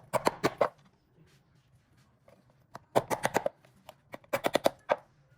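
Three quick runs of sharp clicking knocks, each a rapid string of several strikes: one at the start, one about three seconds in and one near the end.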